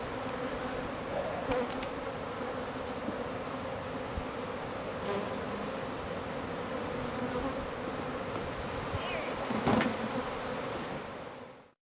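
Many honeybees buzzing in a steady drone. There are a couple of light knocks, the loudest about ten seconds in, and the sound fades out just before the end.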